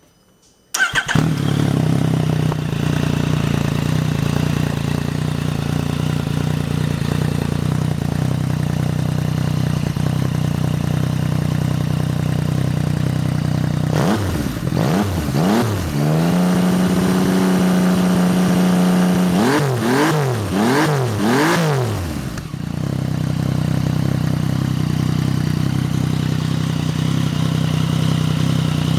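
Yamaha FJ-09's 847 cc three-cylinder engine running through an IXIL L3XB aftermarket exhaust with the baffles in. It starts about a second in and idles steadily, then about halfway through it is revved in quick blips, held at higher revs for a few seconds, blipped several more times, and settles back to idle.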